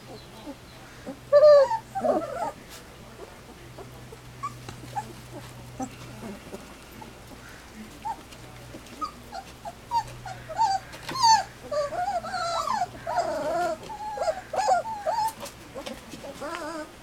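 Three-week-old Standard Poodle puppies whimpering and squeaking: many short, high, wavering cries from several pups, with a louder cry about a second and a half in, growing busiest from about ten to fifteen seconds in.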